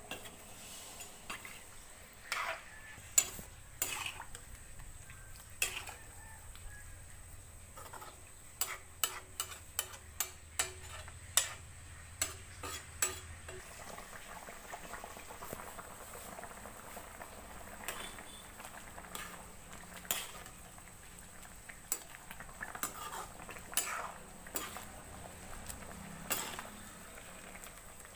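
Metal ladle clinking and scraping against a cooking pot as a fish and ridge gourd curry is stirred, with a quick run of clinks about a third of the way in. The curry simmers faintly underneath.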